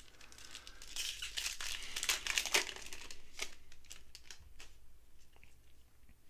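Plastic foil wrapper of a football trading-card pack crinkling and tearing as it is opened, loudest for about two seconds near the start, then fainter rustles and clicks.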